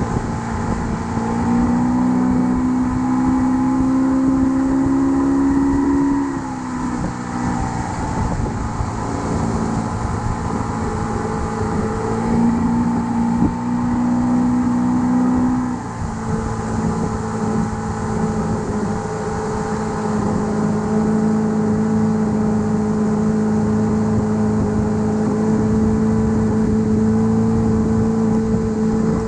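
A motor engine running, its pitch rising and falling a few times in the first half, then holding steady at a higher speed for the rest.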